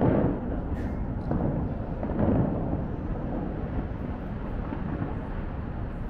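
Bellagio fountain shooters firing: three deep booms as water is blasted skyward, the first right at the start, then about a second and two seconds later, over a steady low rumble of water.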